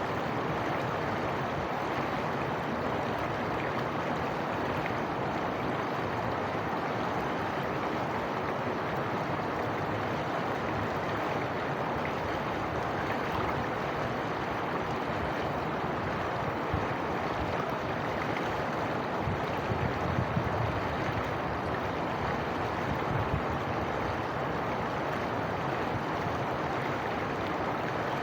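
Steady rushing of running water, with a few soft low thumps about two-thirds of the way through.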